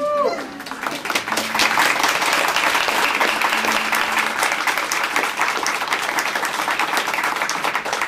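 A crowd of guests clapping and cheering, opening with a short whoop that rises and falls. Sustained applause follows and dies away near the end.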